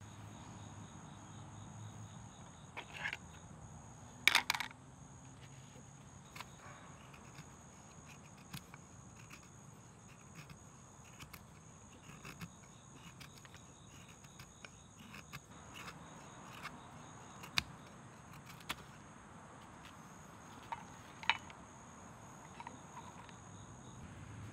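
A fixed-blade knife shaving curls from a stick of resinous fat wood: soft scraping strokes with scattered sharp clicks and knocks, the loudest about four seconds in. A steady faint high tone sits underneath.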